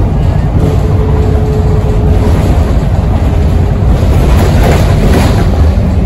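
Interior sound of a VDL SB200 single-deck bus under way: a steady low engine drone with road and cabin noise. A faint steady whine comes in about half a second in and fades after a second and a half; the uploader takes this whine for a 'crying turbo'. A wash of rattle and road noise swells near the end.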